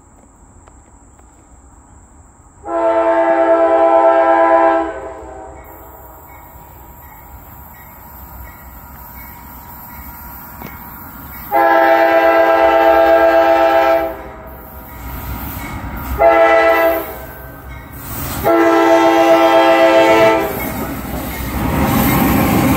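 Diesel freight locomotive's air horn sounding the grade-crossing signal as it approaches: a chord of several tones in a long, a long, a short and a final long blast, with a faint bell ringing steadily between the first two blasts. Near the end the locomotive arrives and passes close by, its engine and wheels loud.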